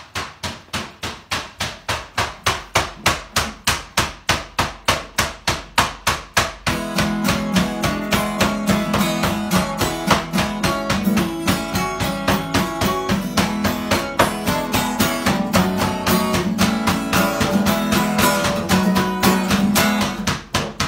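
Acoustic guitar strummed hard in an even rhythm, about four strokes a second, changing about seven seconds in to a fuller, denser strumming pattern with held low notes.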